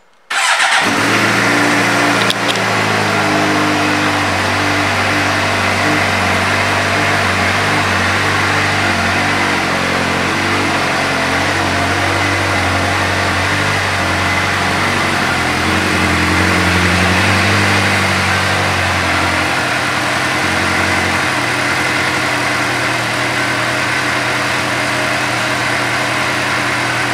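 2008 Suzuki GSX-R600's inline-four engine idling through an aftermarket exhaust, cutting in suddenly and holding a steady, even pitch.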